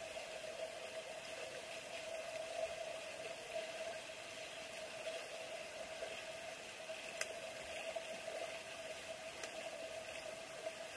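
Underwater swimming-pool ambience picked up through a submerged camera's housing: a steady hum and hiss, with a sharp click about seven seconds in and a fainter one a couple of seconds later.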